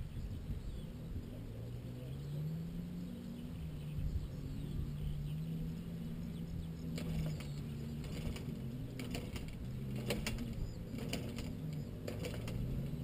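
A distant motorbike engine drones, its pitch slowly rising and falling, over low wind rumble on the microphone. In the second half comes a run of sharp clicks and rattles.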